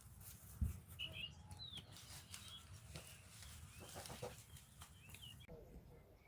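Faint outdoor ambience with small birds chirping in short, scattered calls, some clicks and a brief low thump about half a second in.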